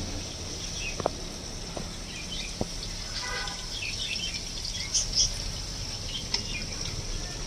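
Onions frying in oil and ghee: a steady high sizzle, with a few light clicks near the start and faint bird chirps now and then.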